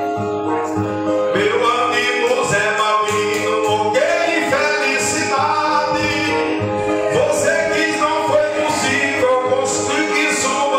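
Two steel-strung violas of the kind used in Northeastern Brazilian cantoria, with resonator covers, played together with a steady ringing drone, while a man sings a repente verse over them.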